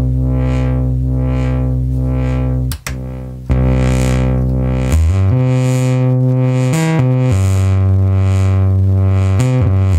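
Doepfer MS-404 analog monosynth module played from a controller keyboard: a buzzy sustained bass note whose filter opens and closes rhythmically, about twice a second. The sound cuts out briefly near three seconds in, then steps through a few different held notes.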